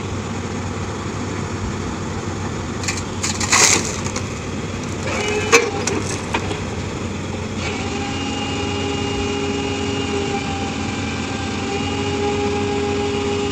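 Komatsu PC200 excavator running steadily as a mini spun-pile rig. About three and a half seconds in there is a loud crackling, cracking burst, and about two seconds later a sharp knock. From about eight seconds on a steady whine with several pitches sounds over the engine as the rig works the concrete pile.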